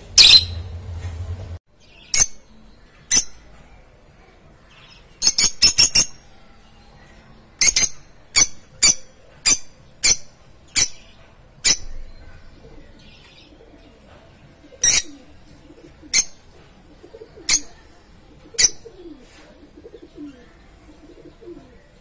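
Lovebirds giving short, sharp, high-pitched chirps at irregular intervals of about a second or more, with one quick run of four. Faint lower falling calls sound in the background in the second half.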